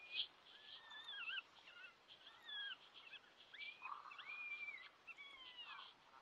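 Faint coyote vocal calls: a run of whining, wavering calls that glide up and down in pitch, one after another, of the kind played to draw a coyote in to breeding-fight sounds.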